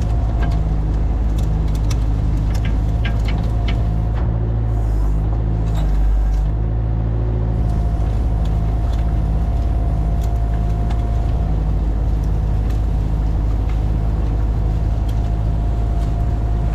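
Engine running steadily under load: a deep, pulsing rumble with a faint steady whine above it, and scattered clicks and knocks in the first few seconds.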